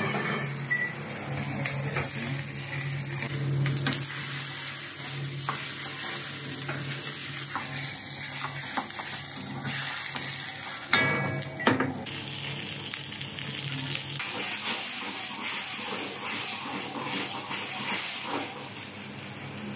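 Vegetables and broth sizzling in a carbon-steel wok over a gas burner as they are stirred with a metal ladle, with a few sharp knocks of the ladle on the wok about two-thirds of the way through. A low steady hum runs underneath and drops away shortly after the knocks.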